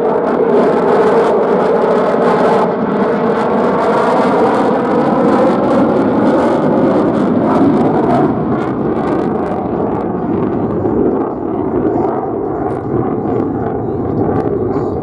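F-35 Lightning II fighter's jet engine, a single F135 turbofan, running loud and steady as the jet flies its display, with wavering tones and easing slightly in the second half.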